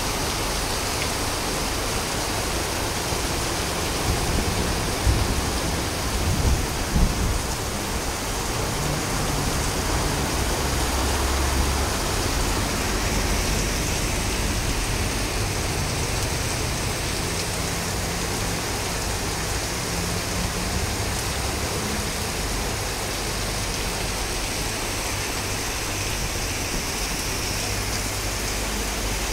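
Heavy rain pouring down on a flooded street: a steady hiss of rain and running water. A few low bumps come about five to seven seconds in.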